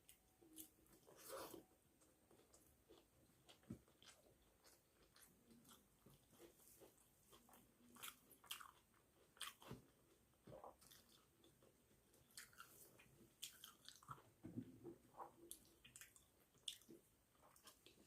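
Faint, close mouth sounds of a person eating rice and fish curry: chewing, with scattered sharp smacking clicks at irregular moments and an occasional crunch.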